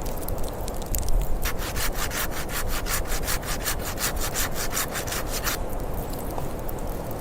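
Hand saw cutting wood: quick, even rasping strokes, about six a second, start about a second and a half in and stop about four seconds later, over a steady low rumble.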